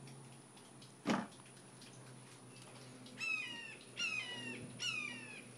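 A single sharp thud about a second in, then a crow cawing: three harsh, falling caws in a row, starting past the middle.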